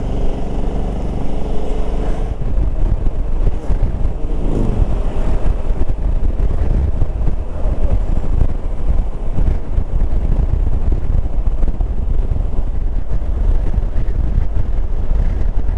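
Motorcycle riding along a road: a steady engine note for the first couple of seconds, then mostly wind and road noise on the microphone with the engine underneath.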